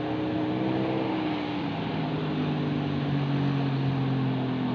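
Tour bus engine pulling uphill under load, a steady drone that drops slightly in pitch about a second and a half in.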